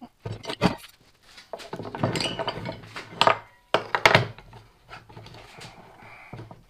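Steel parts of a Clark deep hollowing system being handled and fitted together on a workbench: a series of metal clanks, clinks and knocks with some scraping, the loudest knocks about half a second, three seconds and four seconds in.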